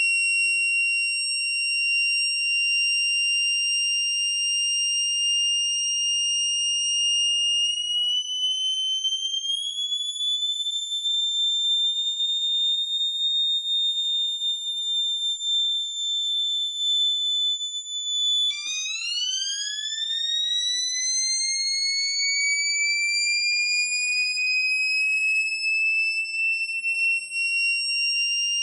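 Home-made microcontroller-driven electronic siren imitating a factory siren: a steady high tone slides up a little and holds. About two-thirds of the way through it drops suddenly to a low pitch and slowly winds back up, like a motor siren spinning up again.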